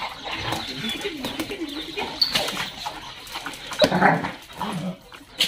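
Several excited dogs whining and whimpering in wavering tones as they crowd around to be petted, with a louder burst about four seconds in.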